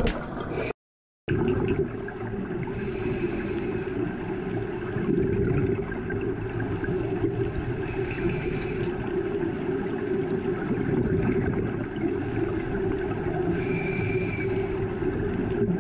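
Underwater sound through a GoPro housing: a steady low rush of water in the current, with bursts of bubbles from scuba divers exhaling about every five seconds. The sound drops out briefly about a second in.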